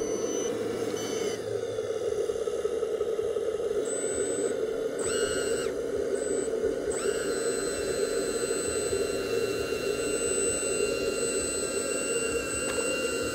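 1/14-scale RC truck's electric drive running with a steady hum and high-pitched whines. The whines switch on and off a few times around the middle, then hold.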